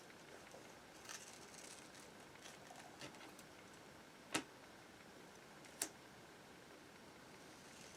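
Near silence with a few faint ticks and taps and two short, sharp clicks about four and a half and six seconds in.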